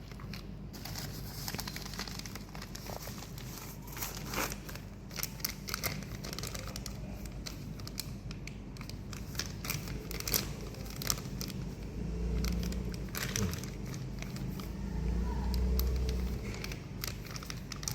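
Plastic packaging crinkling and rustling as it is handled, with scattered clicks. A steady low hum runs underneath and swells twice in the second half.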